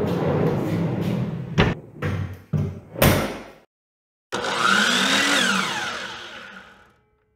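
Plywood drawer rolling on bearing-wheel tracks with a rumble, then sharp knocks as it is shoved shut, the loudest about three seconds in. After a brief silence, a logo sound effect: a whoosh with sweeping tones that fades out.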